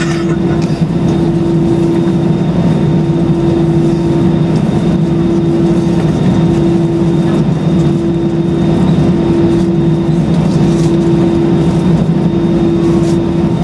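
Cabin noise of an Airbus A320-200 on the ground, its jet engines running at low power. It is a steady, unbroken hum with a strong constant drone and a faint high whine above it.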